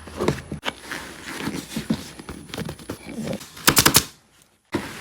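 Staple gun firing four quick shots in a row about three and a half seconds in, after scattered lighter clicks and handling knocks.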